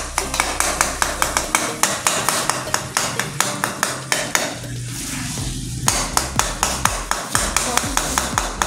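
Metal ladle scraping and clacking against a metal karahi as minced meat (keema) is stir-fried, with repeated sharp knocks a few times a second over a sizzling hiss.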